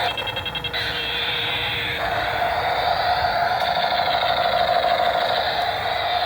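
Battery-operated toy helicopter playing its electronic sound effect: siren-like tones slowly rising and falling over a steady buzzing whir, opening with under a second of rapid pulsing.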